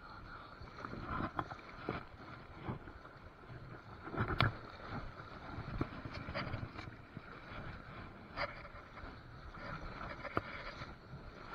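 Shallow river water sloshing and splashing around a wading angler's legs and a landing net, with a few short, sharp splashes scattered through.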